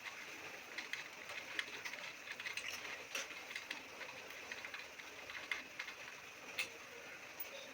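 Scattered light clicks and taps at an irregular pace over a steady hiss.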